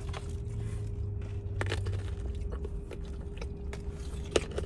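A person biting and chewing a snack: a few scattered crunchy clicks, the sharpest near the end, over a steady low hum.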